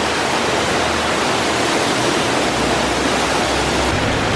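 Large tiered fountain: water pouring from the upper bowl and splashing into the basin below, a steady rush of water.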